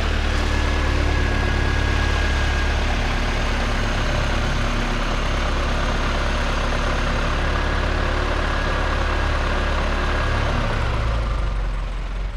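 Supercharged Mazda MX-5 Miata's 1.8-litre VVT four-cylinder engine, with a Fast Forward MP62 supercharger belt-driven off the crank, idling steadily.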